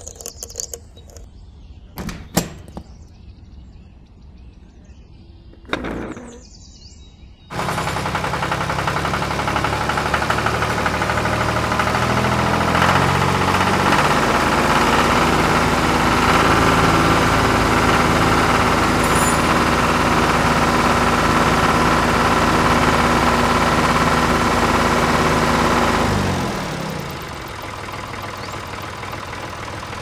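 A few small metallic clicks and clinks as a wire hook is attached to a miniature tractor. Then, about seven seconds in, a loud tractor-engine sound starts abruptly and runs steadily under load while the toy tractor pulls a plough through sand. It falls to a lower level a few seconds before the end.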